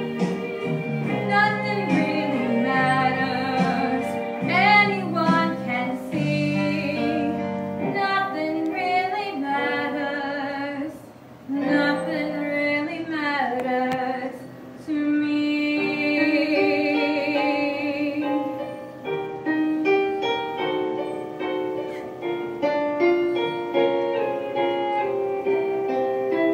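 Woman singing karaoke into a microphone over a backing track with piano.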